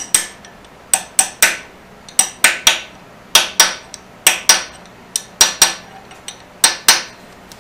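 Small ball peen hammer tapping a steel drift to drive a new crankshaft oil seal into its bore on a Kawasaki 19 hp engine. Light, ringing metal-on-metal taps come mostly in pairs, about once a second.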